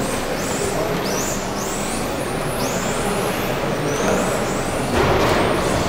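Electric RC off-road cars' brushless motors whining as they accelerate, the high whine rising in pitch and levelling off again and again as cars come out of corners. There is a steady rushing noise under it, louder about five seconds in.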